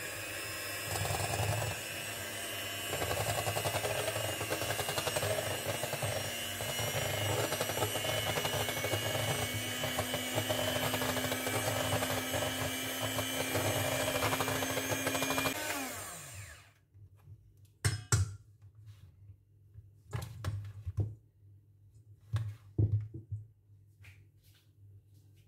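Electric hand mixer running steadily with a constant whine, its beaters whisking coconut whipping cream in a stainless steel bowl. It is switched off about 15 seconds in and winds down with a falling pitch, followed by several sharp knocks and clatters.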